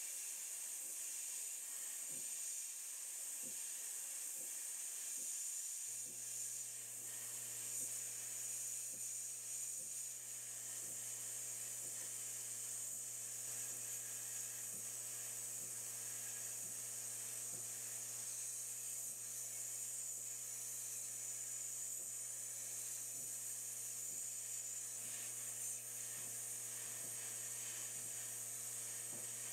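Sandblasting cabinet gun blasting abrasive against a rusty pressed-steel toy truck part, a steady high hiss. A steady low hum joins about six seconds in.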